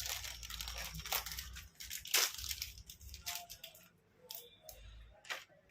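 Motherboard-box packaging being handled, crinkling and rustling in scattered short crackles, with a brief lull about four seconds in.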